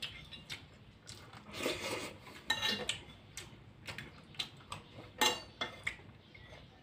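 Metal fork clinking and scraping against a glass baking dish full of food: a scattered run of sharp clicks, the loudest a little after five seconds in.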